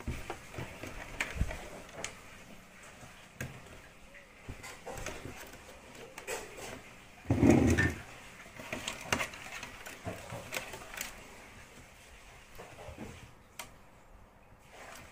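Small clicks and rattles of wires and connectors being handled on the circuit boards of an opened CRT television, with one louder thump about halfway through.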